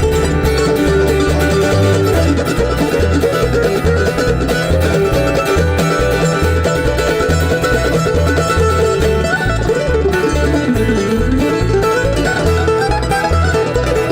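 Bluegrass instrumental break: plucked strings over a steady, pulsing bass beat, with one note sliding down and back up about ten seconds in.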